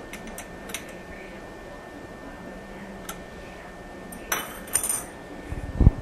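Metal parts of a brass toilet ball cock clinking and tapping as the trip lever and float rod are fitted: a few light clicks, then two sharper metallic clinks a little after the middle, followed by a low thump near the end.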